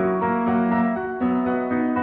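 Background music: a piano or electric-piano piece playing sustained chords that change about every half second.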